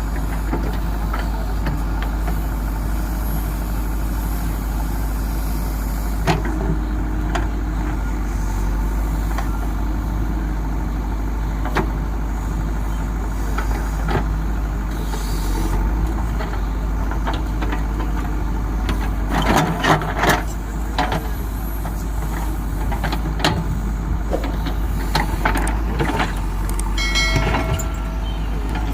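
JCB 3DX backhoe loader's diesel engine running steadily as the machine works, with occasional knocks and clanks, a cluster of them about twenty seconds in.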